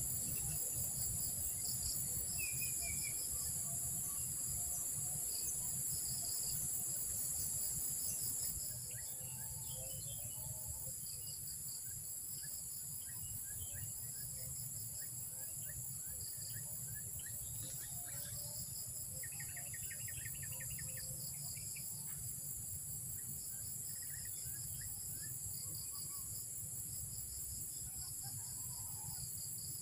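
Steady chorus of crickets and other insects, high and pulsing, over a low rumble, with a few faint bird chirps. The whole sound drops a little in level about a third of the way in.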